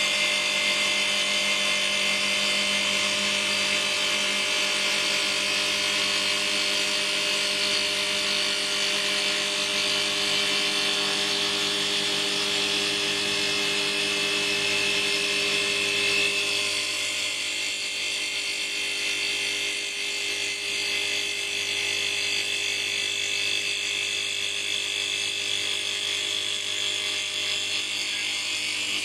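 EagleTec mini CNC wood lathe spinning a wooden blank while its cutter head cuts along it in a single pass, a steady high-pitched whine mixed with the hiss of wood being cut away and chips flying. About halfway through the lower part of the sound falls away and it gets slightly quieter as the cut goes on.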